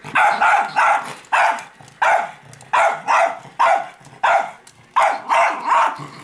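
Barking: a steady run of short, sharp barks, about two a second.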